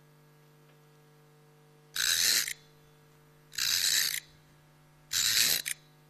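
Clockwork wind-up sound effect, a rasping ratchet-like key-winding noise in three bursts of about half a second, spaced about a second and a half apart, over a faint steady hum. It marks the run-down mechanical doll being wound back up so the aria can go on.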